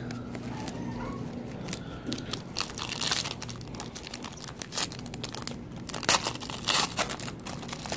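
A trading card pack's wrapper being torn open and crinkled: irregular crackling and rustling, with louder bursts about three seconds in and again around six to seven seconds.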